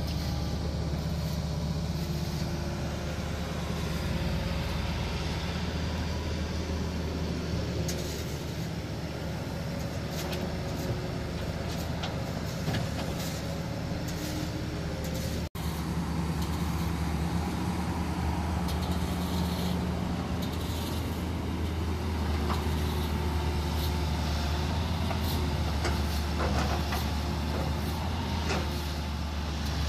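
Hitachi Zaxis 200 hydraulic excavator's diesel engine running steadily under load as it digs and loads, a low drone with scattered clanks and knocks. The sound cuts out for an instant about halfway through.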